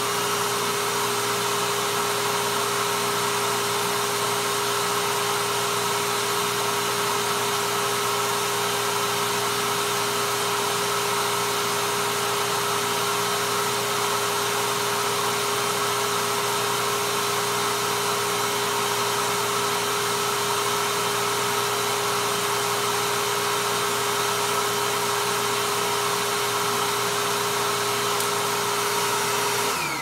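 Royal upright vacuum cleaner, a rebadged Hoover Tempo, running at full power with its nozzle sealed on an airflow test box, a steady whine with a strong hum. It is switched off near the end and winds down with falling pitch.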